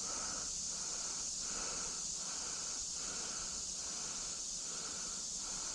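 Steady hiss of a creek's flowing water, with a fainter sound that pulses regularly about every 0.8 s.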